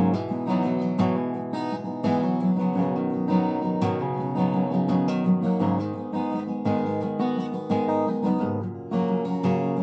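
Steel-string acoustic guitar strumming chords as an instrumental passage, with no singing.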